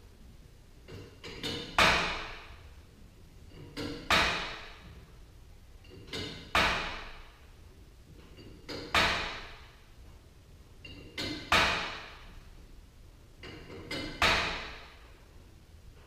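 Steel winding bars clanking in the winding cone of a garage door torsion spring as it is wound a quarter turn at a time. There are six loud metallic clanks about two and a half seconds apart, each ringing out for about a second and each preceded by a lighter click or two.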